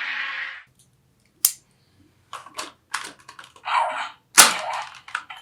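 Sharp plastic clicks of a Ben 10 Disc Ultimatrix toy being handled, a single click and then a rapid irregular run of them, mixed with short hissy bursts of sound from its small speaker. The loudest click comes about four seconds in.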